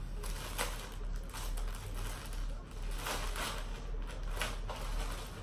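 Clear plastic packaging bag crinkling and rustling in short irregular bursts as hands open it and pull a shirt out.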